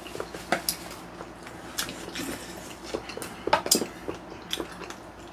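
Eating sounds: a spoon and chopsticks tapping and scraping on plastic takeaway trays and dishes, with chewing. The clicks are irregular, with a loud cluster about three and a half seconds in.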